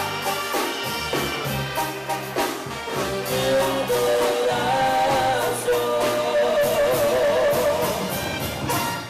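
A live Sinaloan-style banda playing, with trumpets, clarinets, tuba and drums, and a man singing long held notes over the band from a few seconds in.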